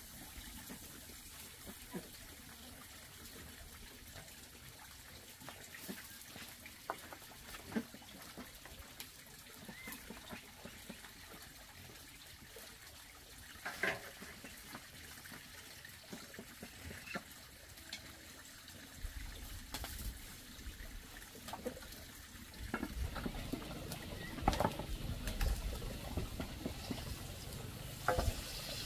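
Cooking at a wood-fired clay hearth: scattered clinks and knocks of metal pans, a tray and utensils over a faint hiss of the open fire. A low rumble comes in about two-thirds of the way through and grows louder.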